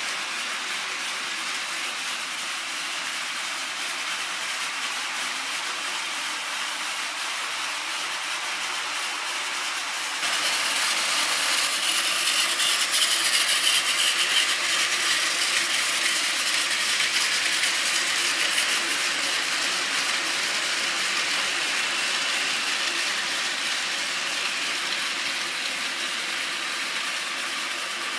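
Battery-powered Plarail toy train running on plastic track: a steady small-motor whir with the fine clatter of plastic wheels on the rails, getting louder about ten seconds in.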